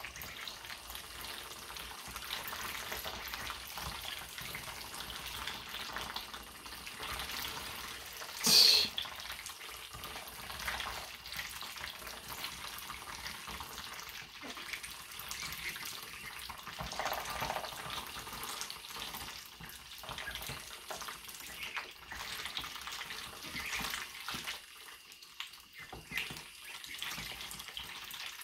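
Ducklings dabbling at a shared bowl of soup, their bills splashing and slurping in the liquid in a steady wet crackle of small ticks. One brief loud, sharp high sound about eight seconds in.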